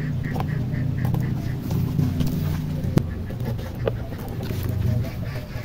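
Ducks quacking in a rapid run, about five calls a second, fading out about a second and a half in, over a steady low hum. A few sharp clicks of a small knife on a tin lid, the loudest about three seconds in, as garlic is cut on it.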